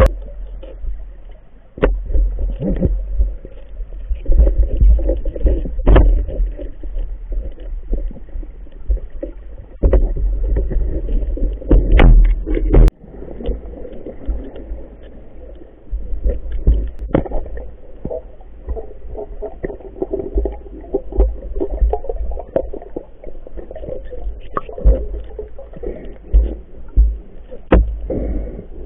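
Underwater sound picked up through a camera's waterproof housing: low rumbling surges of water movement and handling bumps, with scattered sharp clicks and knocks.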